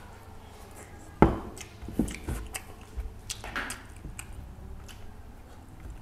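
Close-miked eating: fish curry slurped from the rim of a plate, then wet chewing and smacking of rice and fish eaten by hand. A sharp knock about a second in is the loudest sound.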